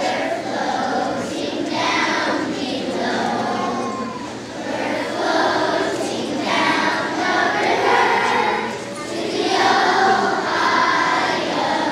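Young children's choir singing together, phrase after phrase, with short dips between lines.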